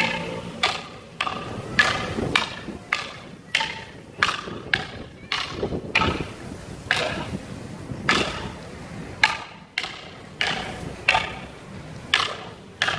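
Eskrima fighting sticks clacking against each other in a double-stick sparring drill: about twenty sharp strikes at an uneven one or two a second, some with a brief woody ring.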